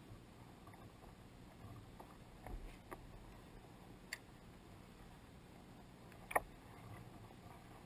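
Small waves lapping against a kayak's hull, faint, with a few short slaps and ticks scattered through, the sharpest about six seconds in.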